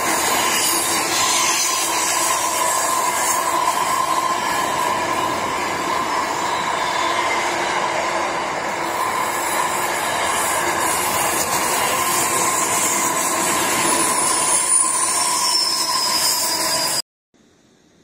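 Container freight train wagons rolling past, a loud steady rush of wheels on rail with a ringing tone through it and brief high wheel squeals near the end. The sound cuts off suddenly to a faint hiss about a second before the end.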